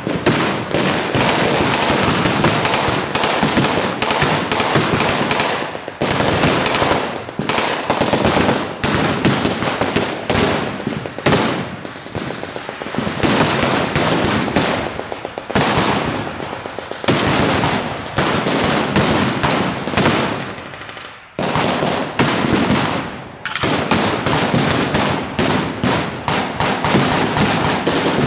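Blank gunfire from WWII weapons: rapid machine-gun bursts mixed with single rifle shots, crackling almost without a break, with a few short lulls in the second half.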